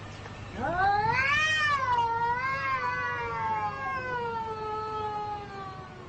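A domestic cat giving one long drawn-out yowl, rising in pitch for about a second and then slowly falling over some five seconds before fading near the end.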